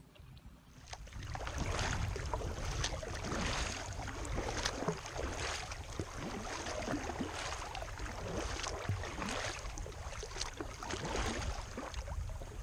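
Kayak paddle strokes splashing and dripping in the water, roughly one or two a second, over a low rumble of wind on the microphone; it starts about a second in.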